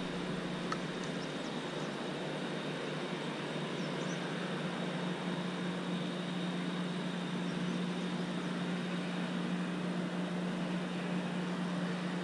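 A steady mechanical hum held at one unchanging low pitch, under an even background hiss.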